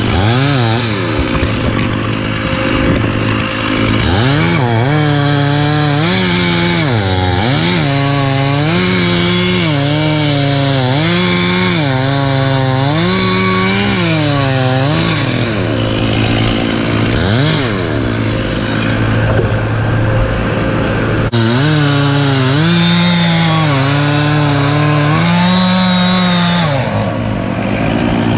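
Chainsaw engine running under load, its pitch rising and dipping over and over, about every second and a half, as in cutting wood. A stretch in the middle is less regular.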